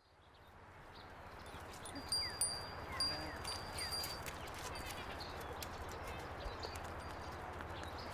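Outdoor ambience fading in from silence: a steady background hiss with scattered small bird chirps, a few clicks and brief high ringing tones about two to four seconds in.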